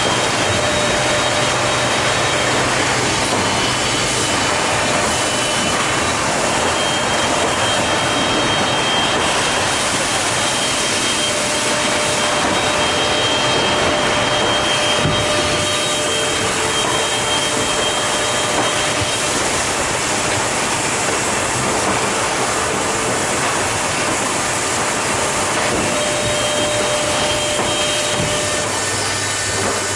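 Priess & Horstmann BAT DTW-CNC feed-through drilling and dowel-insertion machine running: a steady, dense whir with faint high whines that come and go, and no separate knocks.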